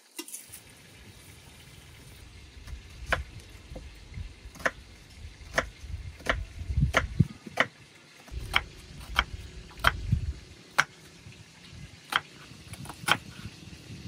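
Knife chopping on a cutting board: a series of sharp strokes, one every half second to a second, over a low rumble.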